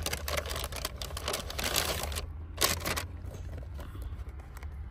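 Paper takeaway bag rustling and crinkling as a hand rummages inside it: dense crackling for the first two seconds, one sharper crackle just under three seconds in, then quieter. A low steady hum runs underneath.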